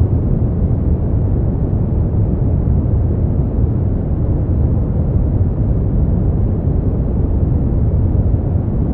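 Brown noise: a steady, deep rumbling hiss with most of its energy in the low end and little above a few thousand hertz, unchanging throughout.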